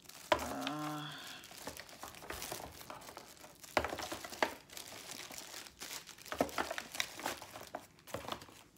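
Packaging crinkling and rustling as small parts are unwrapped and handled, with scattered light clicks and knocks. A short hummed voice sound about half a second in.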